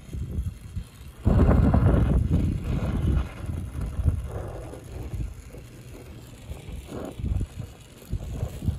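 Wind buffeting the microphone in uneven gusts, loudest from about one to three seconds in, over the steady hiss of a brazing torch flame heating a copper refrigerant stub.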